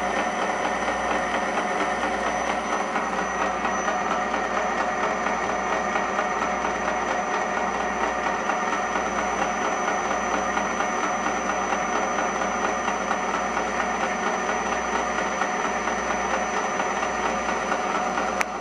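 South Bend metal lathe running steadily under power feed, its boring bar cutting inside an unhardened A2 tool-steel blank. A constant drone of the motor and gear train, with a thin high whine over it.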